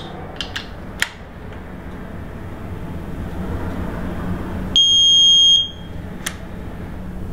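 One high, steady electronic beep just under a second long, about five seconds in, from the torque wrench, signalling that the tensioner nut has reached its set torque of 33 foot-pounds. A steady low hum runs under it, with a couple of sharp clicks, one near the start and one just after the beep.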